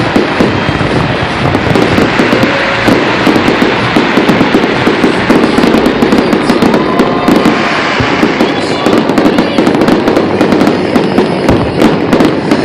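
A fireworks display going off in a dense, unbroken barrage of loud bangs and crackling, many bursts a second.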